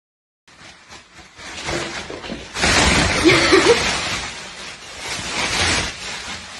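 Thin plastic carrier bag rustling and crinkling as it is handled, in uneven swells, much louder from about two and a half seconds in.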